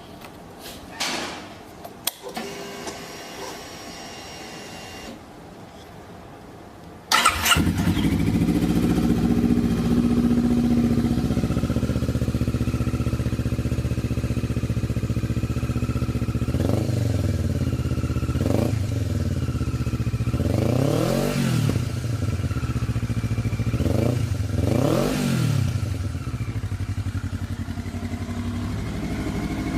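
A few clicks, then the Kawasaki Ninja 400's parallel-twin engine starts suddenly and settles into a steady idle. Later it is given four short throttle blips, each rising and falling.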